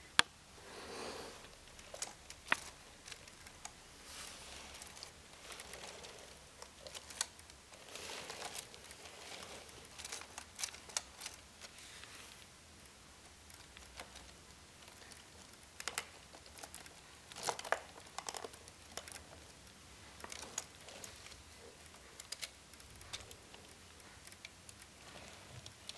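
Lego Technic plastic parts being handled: scattered light clicks and taps with short bouts of rustling, irregular and faint.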